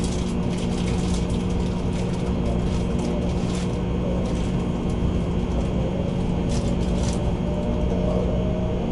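Cabin noise inside a 700 series Shinkansen pulling out of the station: a steady hum, a faint whine rising in pitch over the second half as the train gathers speed, and a few light clicks.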